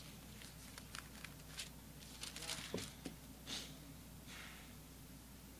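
Faint, scattered soft rustles and small clicks over a low steady hum.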